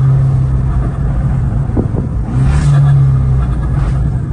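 Abarth 595's tuned 1.4-litre turbocharged four-cylinder engine and Stage 3 exhaust droning at fairly steady revs, heard from inside the cabin; it grows a little louder and higher for about a second in the middle.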